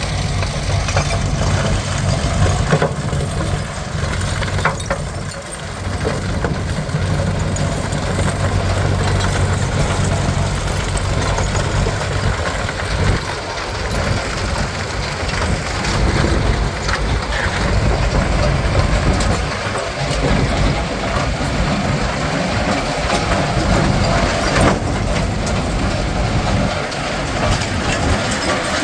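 Tracked RM crushing plant and the Tornado S5 downstream of it running together: a steady low diesel-engine hum under a continuous broad clatter of machinery and material, with occasional short knocks.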